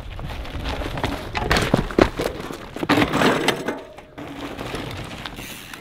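Mountain bike's tyres and frame crunching and clattering over rough dirt and gravel. The sound is loudest from about one and a half to three and a half seconds in, over a low rumble.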